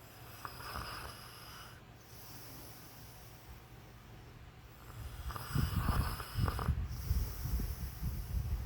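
A sleeping man snoring: a softer breath about a second in, then a louder, low snore from about five seconds on.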